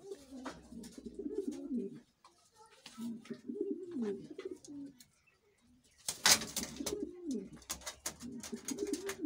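King pigeons cooing in four low, rolling phrases of a second or two each, among light clicks from birds pecking at scattered grain, with a louder rustle about six seconds in.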